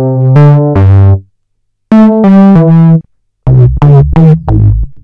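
Roland MV-8000's Analog Modeling Bass virtual analog synth auditioning library patches, among them an electric-piano patch and a square-wave patch. It plays three short phrases of a few synth notes each, with brief pauses between them.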